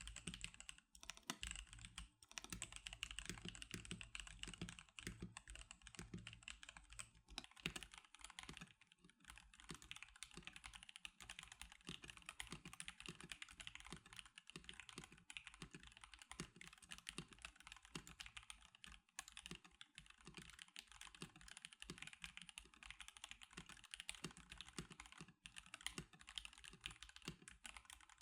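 Fast, continuous typing on a NovelKeys NK87 custom mechanical keyboard: a dense, unbroken stream of key clacks, with a brief pause about nine seconds in.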